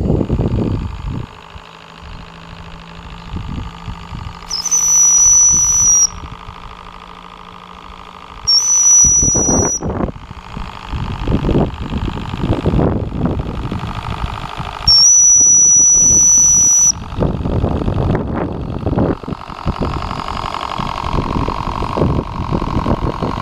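Three blasts of a model steam launch's whistle, each one steady shrill note lasting one to two seconds, a few seconds apart. Between them the Q series V-twin steam engine chuffs unevenly.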